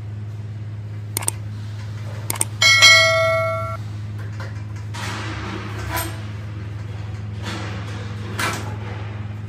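A couple of light metal clicks, then a sharp metallic clang about three seconds in that rings on like a bell for about a second. Quieter scraping and knocking follow as the bare engine block is turned over on its engine stand, over a steady low hum.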